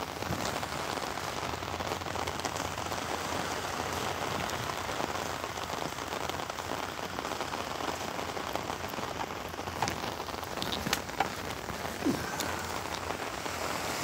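Rain falling on an open umbrella held just overhead: a steady hiss, with a few sharper taps of single drops in the later seconds.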